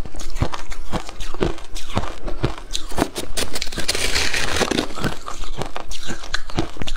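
Close-miked crunching of shaved ice being bitten and chewed, many sharp crisp crunches in quick succession. About four seconds in, a metal spoon scrapes and scoops through the mound of shaved ice, a denser rustling crunch.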